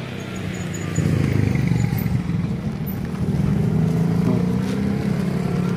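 A motor vehicle engine running steadily, getting louder about a second in.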